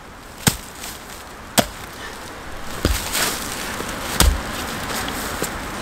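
Hand digging tool from a Yeacool survival multitool kit chopping into leafy forest soil: four sharp strikes about a second apart, with a few lighter knocks between them.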